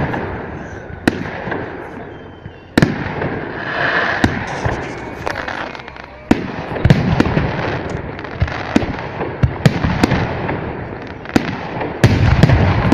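Fireworks display: aerial shells bursting in sharp bangs at irregular intervals, many in quick succession, over continuous crackling.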